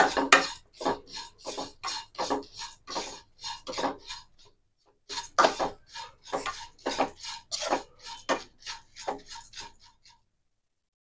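A spatula scraping and stirring dry beaten rice flakes (aval) in a non-stick pan, about three strokes a second, with a short pause a little before halfway. The flakes are being dry-roasted until crisp.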